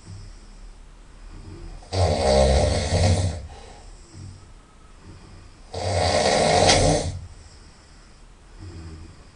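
A person snoring loudly through the nose: two loud snores, each about a second and a half long and about four seconds apart, with quieter breathing between them.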